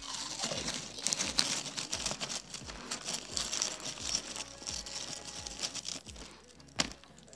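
Crisp packet crinkling and rustling as hands dig through the open bag of crisps, with the crisps crackling and crunching, easing off after about six seconds; a single sharp click near the end.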